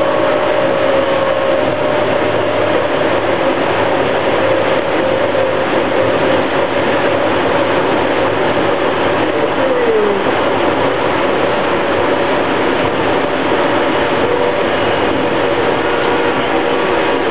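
Kinkisharyo low-floor light rail vehicle running at speed, heard from inside its front cab. There is the steady rumble and rush of the wheels on the rails under a held whining tone, and a short tone slides downward about ten seconds in.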